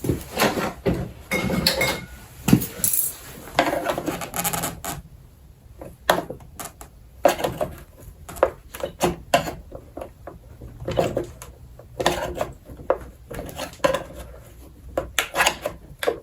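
Irregular metallic clicks, knocks and scrapes of a hand tool working on the snowblower's engine parts to pry off the choke lever. The clicks are busy for the first few seconds, then sparser.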